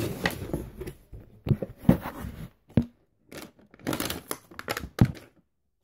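Handling noise from a phone being held and moved about: fingers rubbing and brushing over the microphone, with a few sharp knocks, broken by short drops to silence.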